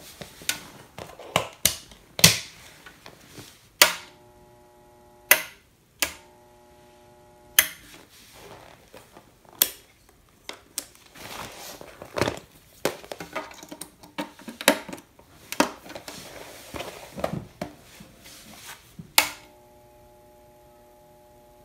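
Power switch of an HI-2000D 220 V to 110 V step-down transformer clicked on and off several times. Each time it is on, the transformer hums steadily, a sign that it powers up again now that its corroded fuse holder has been replaced. Handling knocks and rubbing come in between.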